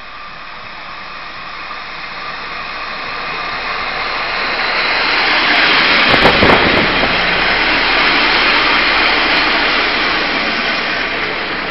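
Taiwan Railways DR2700 diesel railcar train pulling into the station. It grows steadily louder as it approaches and is loudest about six seconds in, with a quick run of clicks as the cars pass closest. It then keeps running loud alongside the platform.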